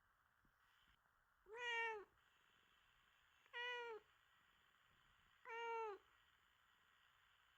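Domestic cat meowing three times, short calls about two seconds apart, the first slightly longer.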